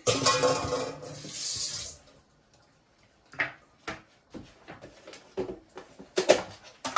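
Kitchen tap running into a stainless steel bowl in the sink for about two seconds, then shut off. Scattered light knocks and clatters follow, the loudest about six seconds in.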